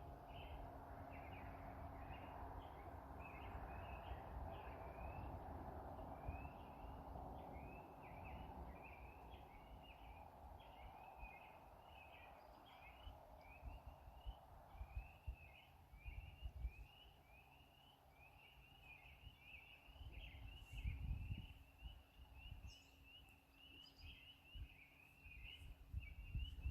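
A spring peeper chorus starting up again: a few scattered short rising peeps at first, then more and more frogs joining until the peeping is continuous through the second half. A soft rushing of the creek runs under the first half, and a few low thumps come about two-thirds of the way through.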